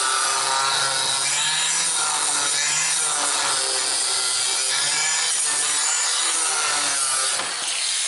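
Angle grinder cutting into a steel plate. Its motor note wavers up and down as the disc is pressed into the metal.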